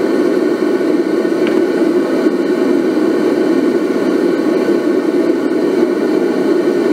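Propane burner running with a steady, unchanging rush, strongest in the low-mid range, as it heats the furnace for melting bronze.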